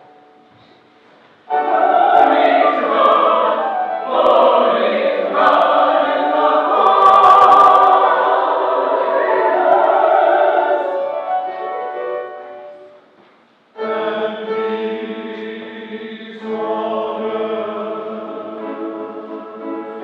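A choir singing with instrumental accompaniment, coming in suddenly about a second and a half in and fading out around thirteen seconds. After a short break, music with long held low notes starts again.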